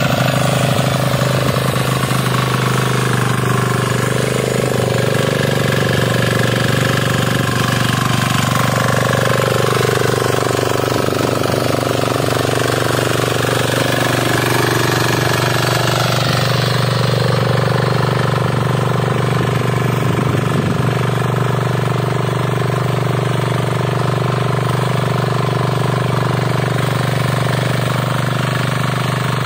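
Kisan Kraft 250D power weeder's 5 hp single-cylinder diesel engine running steadily under load as its rotary tines till the soil.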